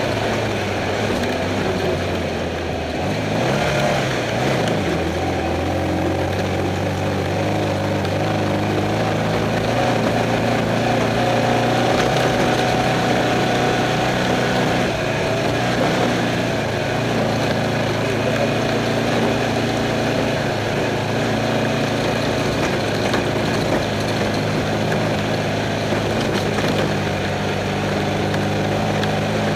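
Off-road race car's engine running, heard from inside the car, with rattle and road noise. The engine note drops about four seconds in, then holds steady.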